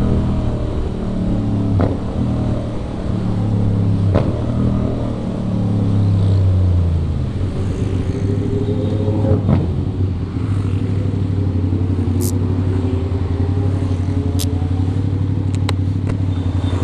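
Aprilia RS 660 parallel-twin engine slowing down, its pitch falling over several seconds with a few sharp clicks along the way. It then settles into a steady, low-revving run.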